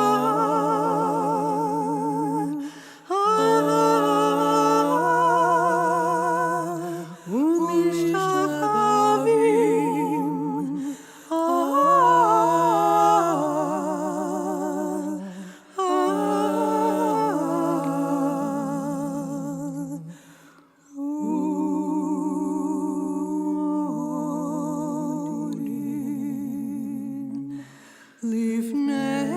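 A wordless vocal melody, hummed or sung with a marked vibrato in phrases of a few seconds with short breaks for breath, over a low sustained note.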